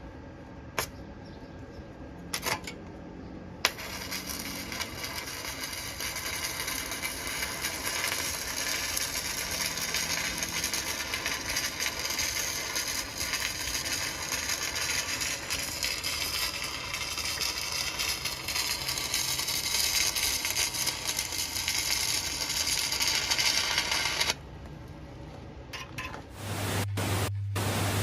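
A few sharp clicks, then a welding arc crackling and hissing steadily for about twenty seconds before it cuts off suddenly. A low steady hum follows near the end.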